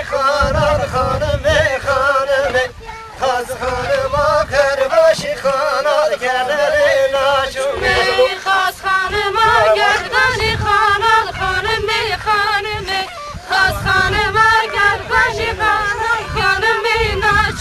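Folk dance music: a high, wavering, richly ornamented melody line over a low pulsing beat, pausing briefly twice.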